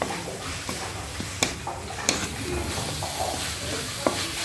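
Chopped vegetables sizzling as they are stir-fried in a hot kadhai, with a wooden spatula scraping through them and knocking sharply against the pan a few times.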